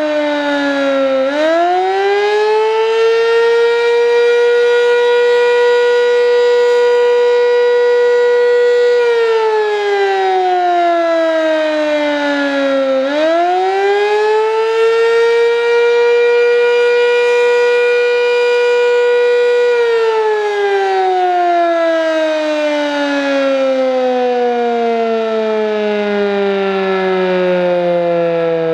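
Sentry 7V8-B outdoor warning siren sounding a wail test. Its pitch dips and climbs back to a high tone that it holds for several seconds, does this twice, then falls away in a long, slow wind-down.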